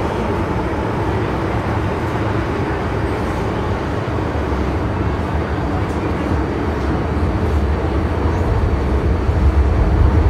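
Cabin noise of an MTR M-train underground train running: a steady rumble and hiss, with the low rumble growing louder over the last few seconds.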